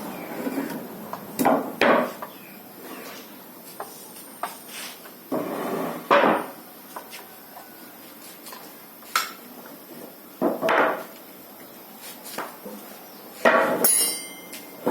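Irregular knocks and clatter of wood and tools as a sliding saw is fitted to a wooden stand, with a few sharp strikes, the loudest about a second and a half and two seconds in, and short scraping stretches between them.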